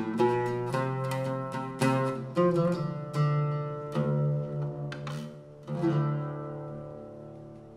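Arabic oud with a walnut bowl and red cedar soundboard, plucked: a run of single notes with sharp attacks, then a last note about six seconds in that rings and fades away.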